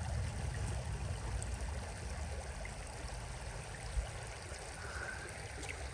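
Steady rush and trickle of a shallow, clear creek running over rocks, with a single soft bump about four seconds in.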